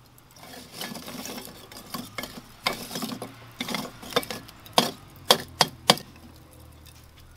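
Chunks of lump charcoal crackling and clinking as an electric charcoal starter's metal element is pushed and worked among them to light the fire. There are scattered light crackles and taps, then four sharp clinks about five to six seconds in.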